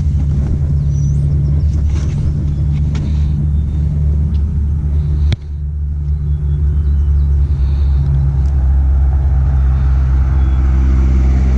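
A motor vehicle engine running steadily with a low rumble, with a single sharp click about five seconds in.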